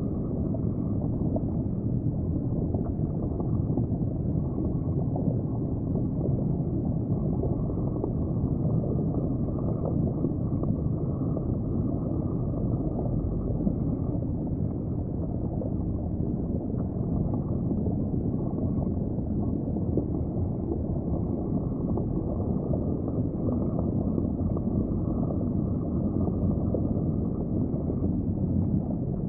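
Steady, muffled low rumble of water heard through a camera submerged in an aquarium tank.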